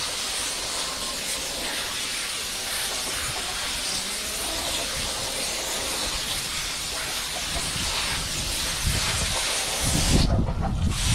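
Garden hose spray nozzle hissing steadily as water sprays onto a tub of seed-starting soil mix. About ten seconds in the hiss stops and a low rumble takes over.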